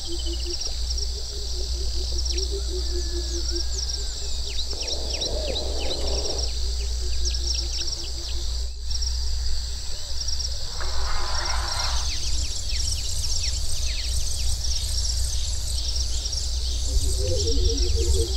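Soundscape of many birds chirping, with quick high calls throughout, over a steady low rumble. A low, rapidly pulsing call comes and goes, and two short rushes of noise sound about five and eleven seconds in.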